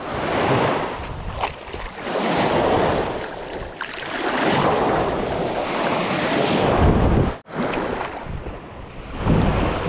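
Surf washing in waves that swell and fade every couple of seconds, with wind buffeting the microphone in a low rumble. The sound cuts out for an instant after about seven seconds.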